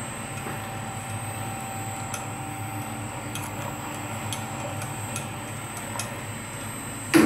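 Mini wire-flattening rolling mill running steadily: a motor hum with a thin high whine, and light ticks roughly once a second. One loud knock near the end.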